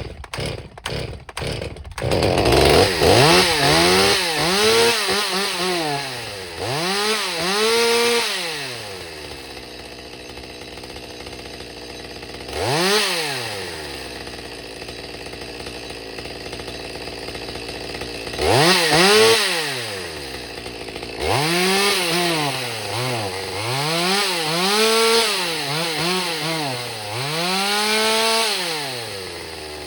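Stihl MS200T top-handle two-stroke chainsaw starting after a carburettor rebuild: a few sharp pops, then it catches about two seconds in. It is revved up and down over and over, settling back to idle between the blips, now running after the rebuild.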